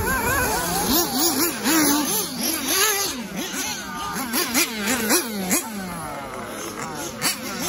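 Several 1/8-scale nitro RC buggies with small two-stroke glow engines, revving and backing off as they race, in quick rising and falling whines.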